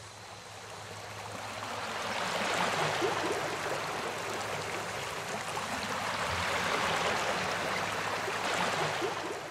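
Sea waves washing up on a sandy beach: a steady rush of surf that builds over the first couple of seconds and then stays full.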